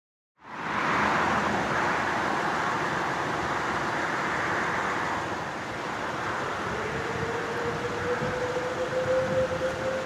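Steady rushing background noise, with an American Signal T-128 electronic tornado siren coming in about six and a half seconds in on its steady alert signal: one faint tone that rises slightly in pitch.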